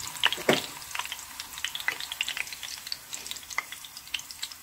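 Hollowed-out zucchini frying in hot oil in a pan, the oil sizzling with scattered crackles and pops. A couple of louder pops come in the first second, and the crackling thins out toward the end.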